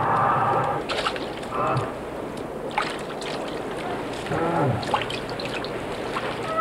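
Beaver kits crying in short, whining calls: a buzzy cry at the start, another about a second and a half in, and a falling cry near the middle. A few sharp clicks come between the calls.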